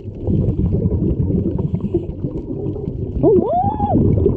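Underwater audio of a scuba dive: a steady low rumble of water and bubbling. About three seconds in, a muffled voice-like hoot rises and falls in pitch, a diver exclaiming into the regulator.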